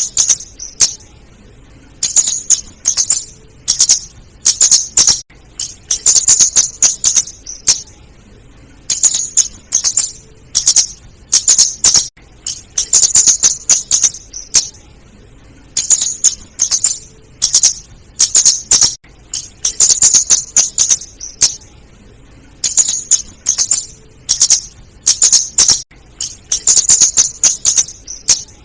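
Female flowerpecker calling: bursts of rapid, very high-pitched ticking notes, each burst about a second long, repeated every one to two seconds.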